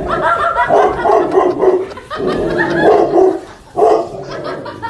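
A large dog barking repeatedly: about five loud barks in quick succession, with short gaps between them.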